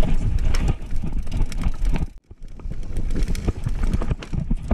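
Mountain bike rattling over a rocky trail: a rapid, irregular run of knocks and clatters over a strong low rumble. The sound drops out for a moment about two seconds in.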